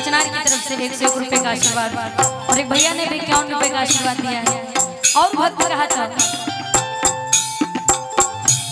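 Live stage-show band music, mostly instrumental. A melody line with pitch slides plays over steady percussion, with sharp, rattling strikes several times a second.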